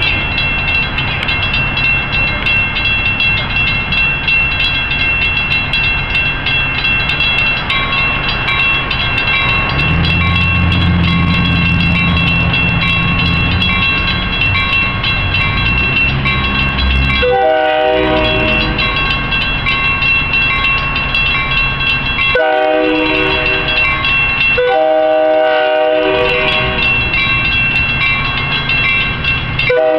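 Railroad crossing bell ringing steadily while a commuter train rolls slowly through the crossing with a low rumble. In the second half the train's multi-tone horn sounds, a short blast, then two longer ones back to back, then another near the end.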